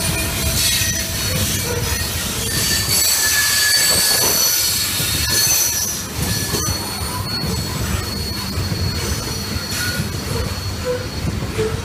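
Train rolling past, its steel wheels squealing against the rails in thin high tones that come and go over a steady low rumble.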